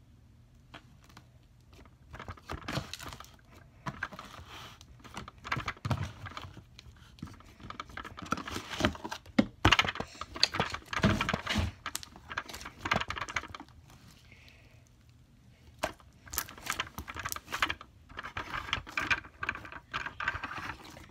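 Thick slime being squished, pulled and kneaded by hand: irregular sticky clicks and crackles, busiest in two stretches with a lull of a couple of seconds a little past the middle.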